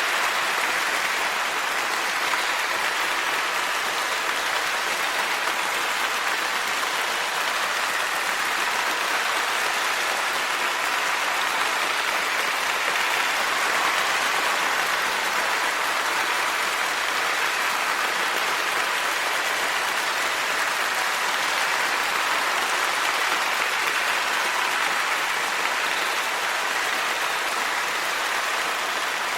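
Dense applause from a large crowd, a steady wash of clapping that holds at an even level throughout.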